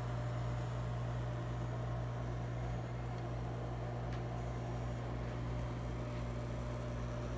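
Kodak Carousel 4600 slide projector running with its lamp on, its cooling fan and motor making a steady hum.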